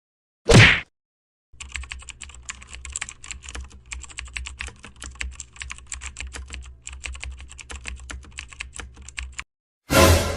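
Computer keyboard typing sound effect: rapid, uneven key clicks for about eight seconds. A short loud burst comes just before it, and another near the end.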